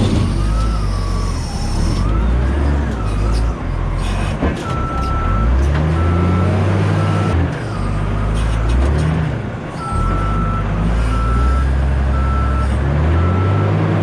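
Cat skid steer's diesel engine working, its pitch rising and falling as the machine moves under load, with a wavering whine in the first few seconds. Its backup alarm beeps steadily about once a second in two runs, starting near the middle and again later, as the machine reverses.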